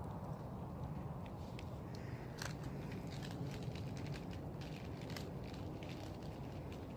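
Bonfire crackling: scattered sharp pops and snaps over a steady low noise.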